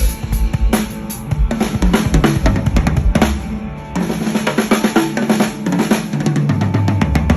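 DW Design Series acrylic drum kit with newly fitted heads being played hard in fast fills, the toms stepping through different pitches over a bass drum and an OCDP snare.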